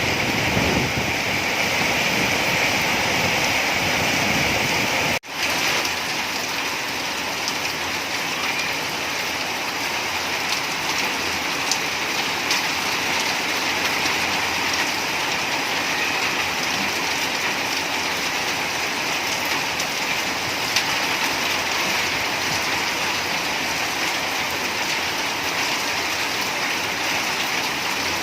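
Steady rain falling, an even hiss with a brief dropout about five seconds in.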